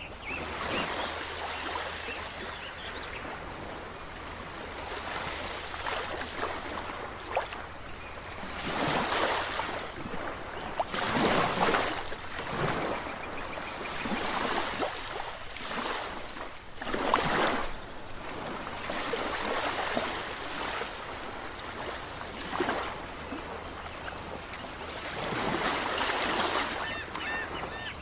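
Ocean waves breaking and washing over the shore, swelling and falling every few seconds, with a few louder breakers.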